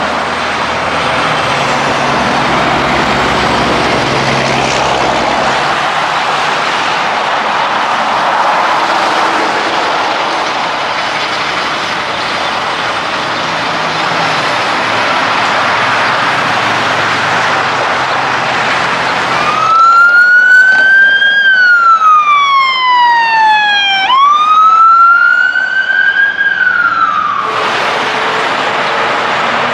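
Semi-trucks and other vehicles passing on a highway, a steady rumble of engines and tyres. About two-thirds of the way in an emergency-vehicle wail siren sounds for about eight seconds, its pitch rising and falling twice, then cuts off suddenly.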